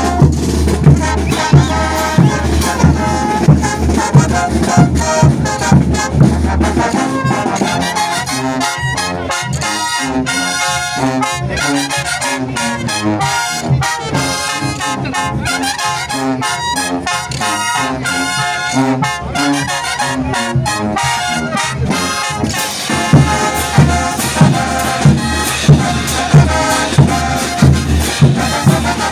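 Bolivian brass band playing, trumpets and trombones over a steady bass drum beat. The drums drop out about a quarter of the way in and come back near the end, leaving the brass playing alone in between.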